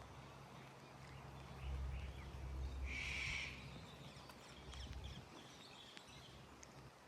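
Birds calling faintly, with one louder, short call about three seconds in, over a low rumble that fades out about five seconds in.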